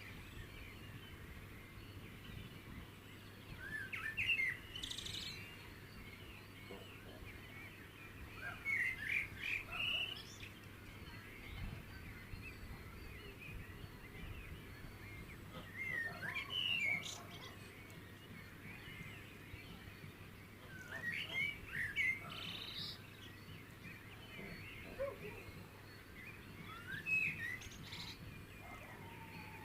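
Songbird singing short chirping phrases about every five to six seconds, over a faint steady background hiss.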